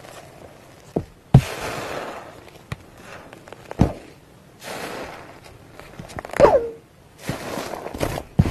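Fluffy slime being pressed with a metal potato masher and then squeezed by hand. It gives squishy hisses with a few sharp pops and clicks, and one squelch that slides down in pitch about six and a half seconds in.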